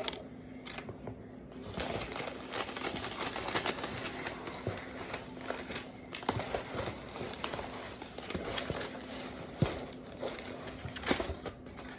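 Packing material being crinkled and rustled by hand as a mailed package is unwrapped, a dense irregular crackling.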